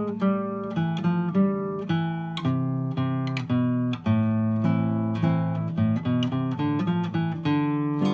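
Solo classical guitar, nylon strings plucked: a melody picked out over bass notes, each note struck sharply and left to ring.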